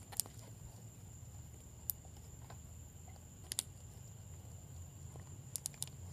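Homemade glue slime being squeezed and kneaded by hand, giving a handful of short sharp sticky clicks and pops, several bunched together near the end, over a low steady hum.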